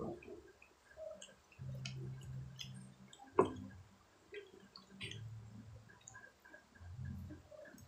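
Close-up wet chewing and lip-smacking of grilled skewered street food eaten by hand, with many small mouth clicks and one sharp smack about three and a half seconds in.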